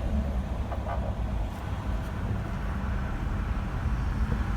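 Steady low rumble of a car's engine and tyres heard from inside the cabin while driving in traffic.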